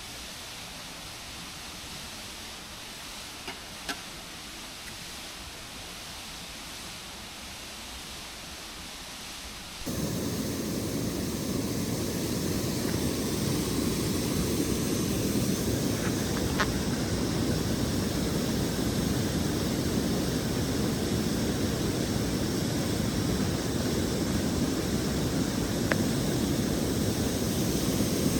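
Steady outdoor rushing noise with a few faint clicks; it jumps sharply louder about ten seconds in.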